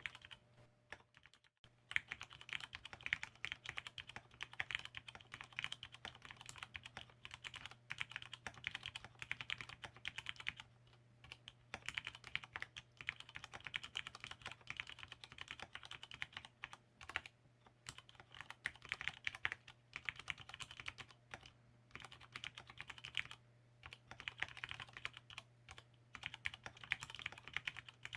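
Fast, continuous typing on an ABKO AR87 aluminium mechanical keyboard with lubed Cherry MX Red linear switches and lubed stabilizers. The run of keystrokes breaks off briefly about a second in and a few more times later. A faint steady low hum runs underneath.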